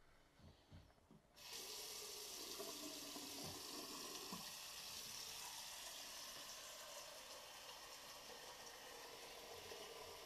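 A few soft knocks, then about a second and a half in an IKEA OLSKÄR single-lever faucet is turned on. A steady stream of water runs from it and splashes into the white ceramic TÄLLEVIKEN sink basin.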